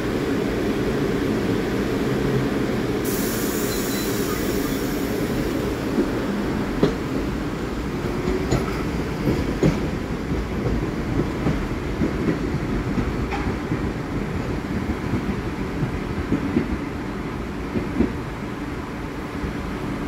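R62A subway train pulling out and running away down the track: a steady rumble, with a brief high hiss about three seconds in. From about six seconds in come irregular clicks of the wheels over the rail joints, and the sound eases off as the train recedes.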